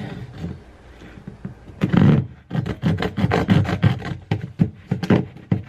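Japanese hand saw sawing through a part with quick back-and-forth rasping strokes, about three a second, starting about two seconds in.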